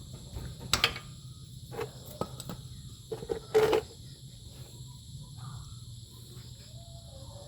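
Steady high drone of crickets, broken by a handful of sharp knocks or clacks in the first four seconds, the loudest about three and a half seconds in.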